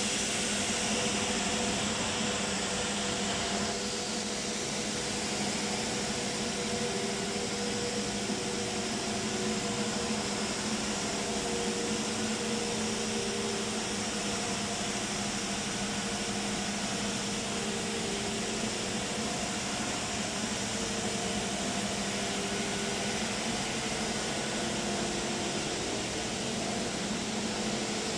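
Paper slitter rewinder machine running: a steady motor hum and whir as the coated paper web runs over the rollers, with a few held tones that drift slightly in pitch.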